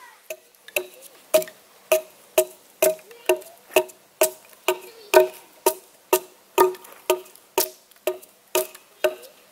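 A hatchet chopping into a green red alder log with steady blows, about two a second. Each blow is a sharp knock with a short ringing tone.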